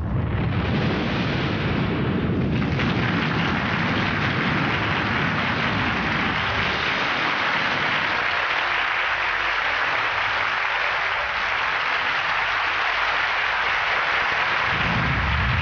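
Studio audience applauding steadily, with a low rumble underneath for the first several seconds that returns near the end.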